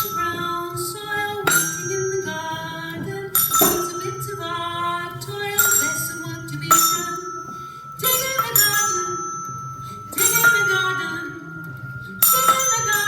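Metal chime bars struck about every one to two seconds, each note ringing on, over other music.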